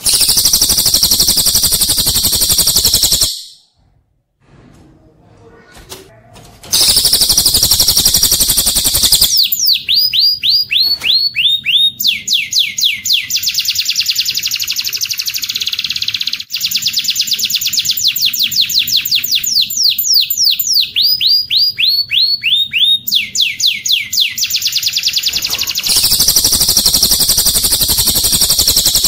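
Recorded songbird song, a cililin's song joined with a domestic canary's: bursts of dense, very high trilling, with a quieter gap of a few seconds near the start. Through the middle comes a long run of quick, repeated downward-slurred whistles, several a second, before the dense trilling returns near the end.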